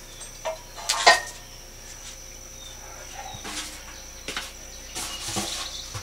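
Concrete mixer parts and their packaging being handled: a couple of sharp knocks about a second in, then scattered rustles and light bumps.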